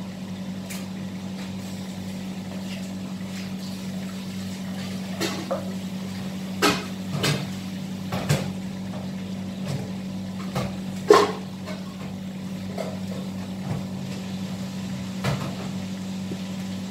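A steady low machine hum with scattered sharp knocks and clinks of pots and kitchen utensils, the loudest about eleven seconds in.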